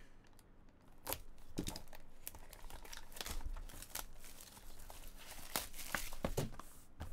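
Plastic shrink wrap being torn and crumpled off a trading-card box, crinkling and crackling irregularly from about a second in.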